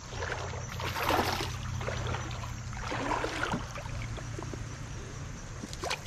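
Water splashing in a shallow creek as a hooked smallmouth bass is brought to hand, two bursts of splashing about a second in and around three seconds, over a steady low rumble; a sharp click near the end.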